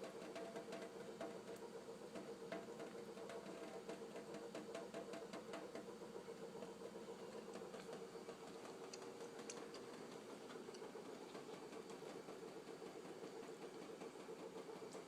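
Faucet running a thin, steady stream of water, faint, with a dense patter of small ticks.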